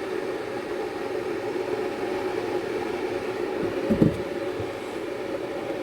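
Steady hum of a running kitchen appliance, with a single low knock about four seconds in.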